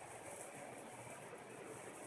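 Faint steady hiss with no thunder, neither a clap nor a rumble.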